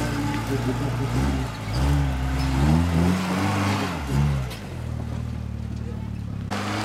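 Off-road trial buggy's engine revving hard under load on a steep dirt climb, its pitch rising and falling several times, then running steadier at lower revs for the last couple of seconds.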